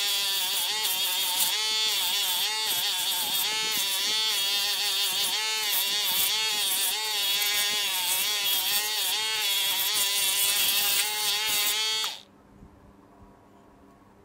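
Small 12 V DC motor of a homemade mini lathe running, its whine sagging and recovering in pitch every second or so as the load on it changes, with a steady hiss over it. It cuts off abruptly near the end, leaving only a faint hum.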